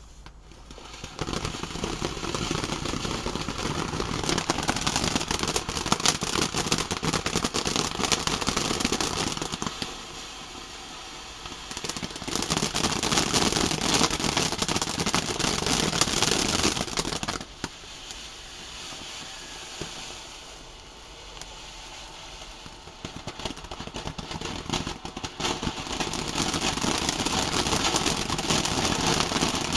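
Ground fountain firework spraying sparks: a dense crackling hiss that starts about a second in. It weakens briefly, surges again, then drops off for several seconds about two-thirds through before building back up near the end.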